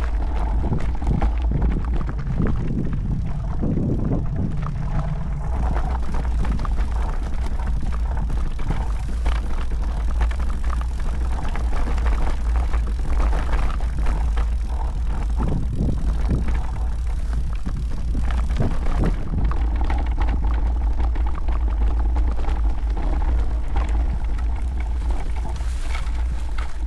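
Wind buffeting the microphone over the tyre noise and chassis rattle of a Pole Voima mountain bike rolling down a rocky dirt singletrack, with frequent knocks as it rides over stones and bumps.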